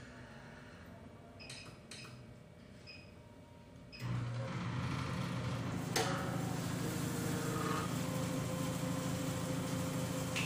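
A few faint clicks, then an optical lens edger starts suddenly about four seconds in and runs with a steady mechanical hum as it cuts a lens to shape, with one sharp click about two seconds after it starts.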